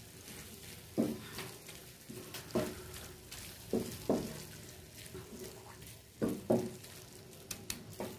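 A spatula scraping and stirring scrambled egg and vegetables in a nonstick frying pan, in about ten short, irregular strokes, over a faint frying sizzle.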